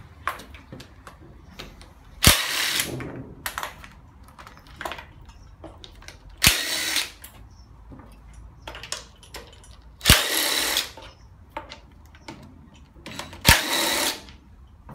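Cordless drill with a socket extension spinning out bolts from a Hyundai Accent 1.5 16-valve engine. It comes in four short runs of about a second, each a few seconds apart and starting with a sharp click. Small metal clinks of tools and parts sound in between.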